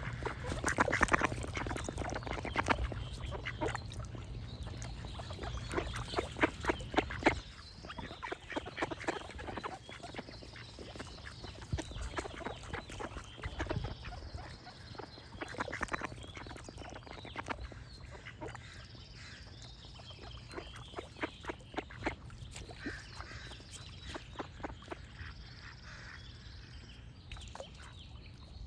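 Ducks quacking in rapid runs of calls, loudest in the first quarter, with songbirds giving short high notes now and then. A low rumble underneath stops about a quarter of the way in.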